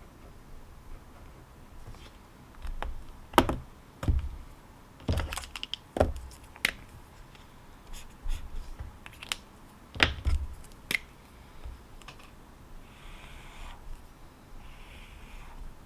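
Irregular clicks and knocks of things being handled on a desk, a dozen or so sharp taps with the loudest about three seconds in and again about ten seconds in. Near the end come three faint soft rustles.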